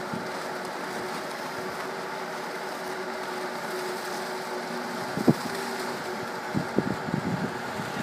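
Steady hum of the electric blower fan that keeps an inflatable tube man up, over street noise. From about five seconds in, gusts of wind thump on the microphone several times.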